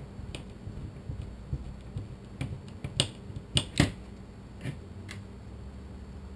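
Sharp clicks and light knocks of small plastic parts of a Thermacell mosquito repeller and a screwdriver being handled on a table, the loudest three coming close together about three to four seconds in.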